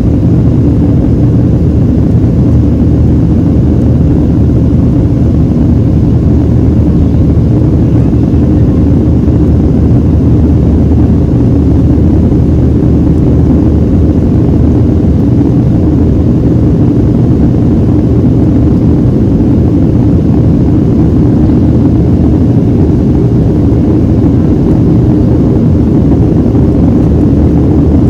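Steady cabin noise inside a Boeing 737-700 airliner, its CFM56-7B engines and airflow making a deep, even rumble that does not change.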